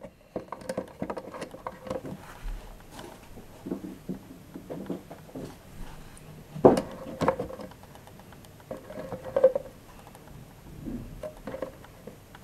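Small plastic toy figures clicking and clattering as they are put one by one into a plastic toy fridge and its drawers. The taps come irregularly, with a few louder knocks about seven and nine seconds in.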